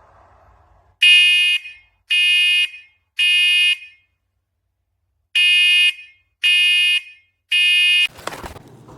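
Combination smoke and carbon monoxide alarm sounding its three-beep temporal pattern, the smoke/fire signal: two rounds of three loud, shrill beeps about half a second each, with a pause between the rounds. A short noisy rustle follows near the end.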